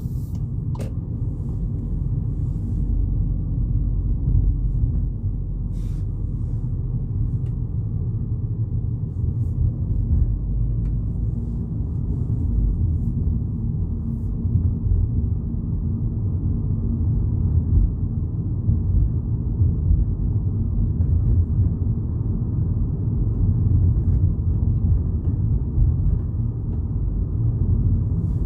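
Steady low rumble of a Volkswagen Polo GTI driving, its engine and road noise heard from inside the cabin.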